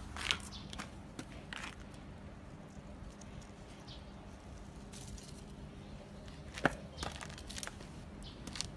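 Scattered soft rustles and crackles of raspberry leaves and canes being brushed and handled, with one sharper snap about two-thirds of the way through, over a faint steady hum.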